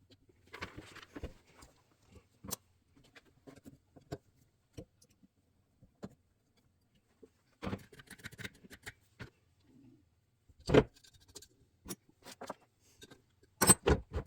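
Small metal carburetor parts being handled, with irregular clinks, rattles and light knocks, and a few louder knocks about two-thirds of the way through and near the end.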